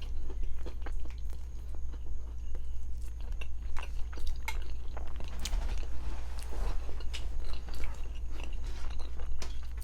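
Close-miked chewing and biting of a crunchy biscuit, with many small crunches and wet mouth clicks scattered through, over a steady low hum.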